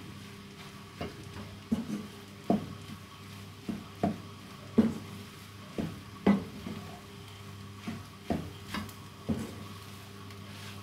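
Wooden spatula stirring shredded chicken in a frying pan: repeated scrapes and knocks against the pan, one or two a second, over a steady low hum.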